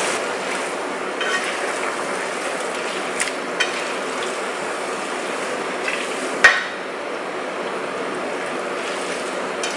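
Pasta in a cream sauce sizzling and simmering in a frying pan while it is tossed and stirred with kitchen utensils, with faint scrapes and one sharp clack of a utensil against the pan about six and a half seconds in.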